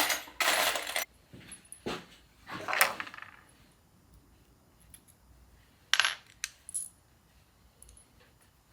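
Small steel bolts clinking and jingling against each other and a metal container as they are rummaged through for M6 bolts. A loud jingling clatter opens it, followed by a few separate metallic clinks, the last about six seconds in.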